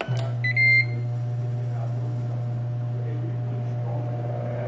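Ninja Foodi air fryer starting to cook: its fan switches on and runs with a steady low hum. A short electronic beep sounds about half a second in as the start button is pressed.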